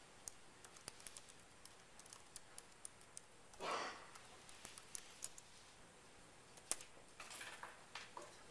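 Faint, scattered light clicks and taps of a computer keyboard, irregular rather than a steady rhythm, with a short louder noise about three and a half seconds in.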